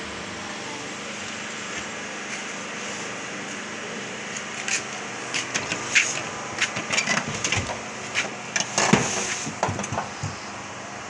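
Stored household things being shifted and rummaged through: a string of knocks, clicks and rustles from about four seconds in until near the end, over a steady hum.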